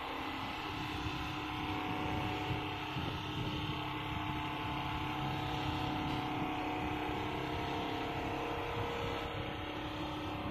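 Richpeace computerized single-needle quilting machine running, stitching through a padded quilt as its head travels along the gantry: a steady machine hum with several held tones.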